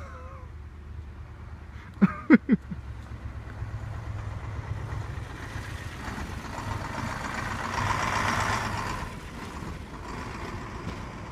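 A heavy road vehicle passing: its sound swells over a steady low rumble, peaks about eight seconds in and fades away. A few short sharp sounds come about two seconds in.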